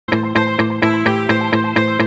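Background music: a plucked, picked melody of quick notes, about four a second, starting right at the beginning.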